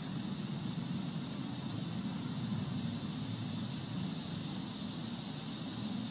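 A steady low droning rumble of unexplained origin, the kind reported as the 2011 'mystery sounds', which the person filming says is not a plane. A thin steady high tone runs above it.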